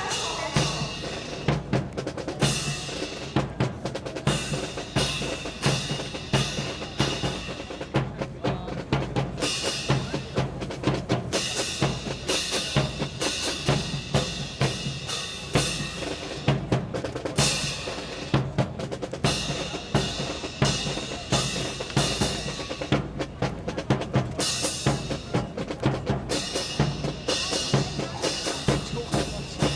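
Drums playing a steady, driving beat: snare and bass drum strikes repeating evenly throughout, as accompaniment to a marching drill.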